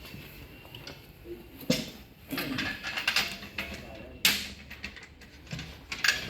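Scattered sharp metal knocks and clanks from an engine being lined up with the transmission during installation, the loudest about four seconds in, with faint low voices murmuring between them.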